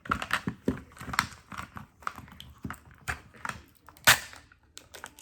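Hands opening a plastic toy-ball segment and its wrapping: a string of sharp plastic clicks and crackles, with one loud snap about four seconds in.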